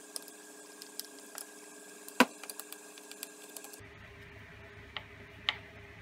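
Scattered small clicks and ticks of a hand screwdriver turning screws and of hard plastic pieces being handled, with one sharper click about two seconds in.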